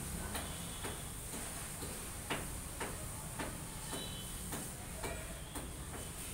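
Light, sharp clicks, about two a second, over a steady low hum and a steady high hiss.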